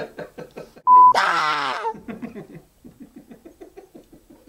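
A short, loud censor bleep, a single steady beep about a second in, over a man's outburst. Then men laughing hard, the laughter trailing off into quick, rhythmic chuckles.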